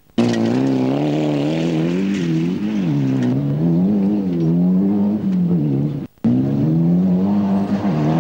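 Rally car engines revving hard, the pitch climbing and falling again and again with throttle and gear changes. The sound drops out briefly twice, just after the start and about six seconds in.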